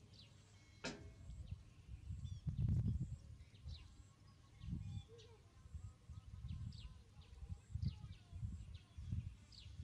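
Short, high animal chirps, each falling in pitch, repeated about once a second, over recurring low muffled thumps and rumbles, with a sharp click about a second in.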